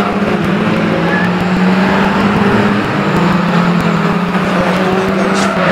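Several banger racing cars' engines running hard together as a pack goes round a shale oval, making a loud steady drone.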